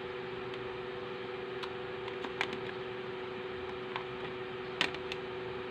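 Small scattered clicks and taps from a plastic cable jack and multimeter test leads being handled, the sharpest about two and a half and nearly five seconds in, over a steady background hum.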